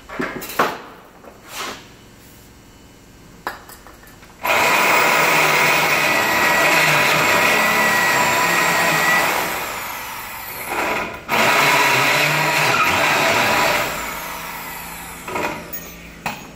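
Handheld power drill running under load into the truck's metal rear bumper in two long runs, the first about five seconds with a thin high squeal from the bit, the second shorter, trailing off near the end. Two short sharp bursts come just before, in the first two seconds.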